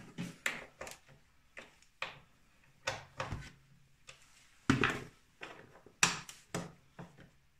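Irregular metal clicks and knocks of hand tools and parts being handled on a snowmobile's chain case and brake assembly, with louder clunks a little under five seconds in and around six seconds.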